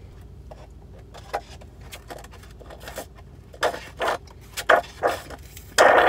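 Quiet car cabin with a low steady hum and small scraping and handling noises. A few short louder noises come in the second half, then a loud sound starts just before the end.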